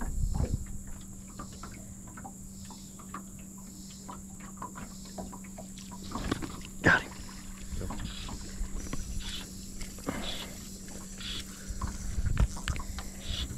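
Handling noise close to the microphone as a fly rod is cast and the line worked: scattered clicks and rustles, one sharp knock about seven seconds in, and louder knocks and rubbing near the end. A faint steady hum and a high hiss sit underneath.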